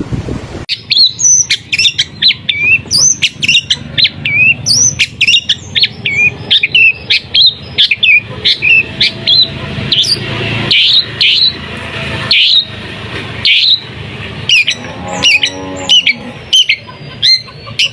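Long-tailed shrike (pentet) singing a rapid run of short, sharp, high chirps and whistles, the fast 'tembakan' bursts of its song. The song starts just under a second in, after a brief stretch of other noise.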